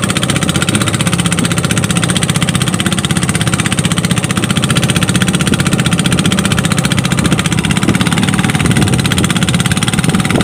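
Small long-tail boat engine running steadily and loudly under way, driving the wooden boat across the water with a fast, even firing beat.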